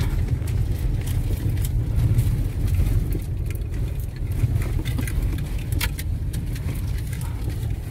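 Inside a car cabin driving slowly over a rough gravel flat: a steady low rumble of tyres and engine, with scattered small clicks and rattles.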